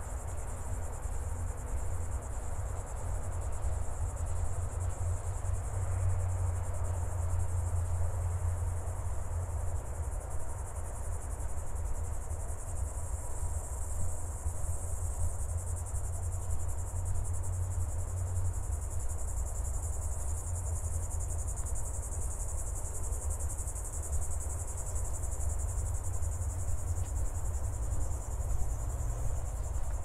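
Steady, high-pitched chirring of an insect chorus in scrub habitat, over a continuous low rumble.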